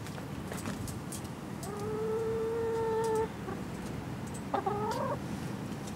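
Domestic chicken calling: one long, level call about two seconds in, then a shorter call that rises in pitch about a second later.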